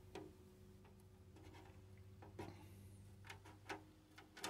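Faint, irregular snips of RC body scissors cutting around a wheel well in a clear polycarbonate RC car body, a handful of short clicks a second or so apart.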